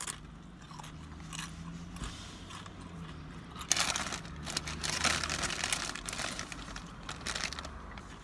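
A chip loaded with burrito-bowl food being bitten and chewed close to the microphone. The loud crunching starts about four seconds in and lasts a few seconds.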